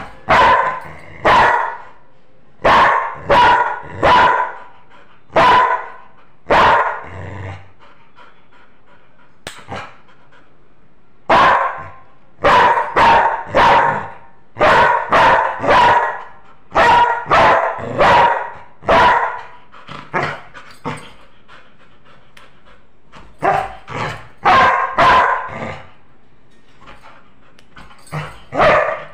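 Yellow Labrador retriever barking loudly and repeatedly, in runs of several barks separated by pauses. The longest run of close-spaced barks comes about midway.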